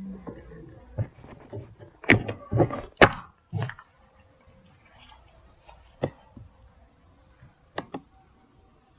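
A series of knocks and thumps, loudest two to three seconds in, followed later by two sharp clicks.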